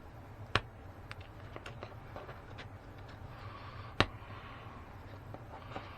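Two sharp clicks, about half a second in and about four seconds in, with fainter ticks and a soft rustle between, as the seat-back cover material is worked loose from the plastic dowels of a hardback seat panel. A steady low hum runs underneath.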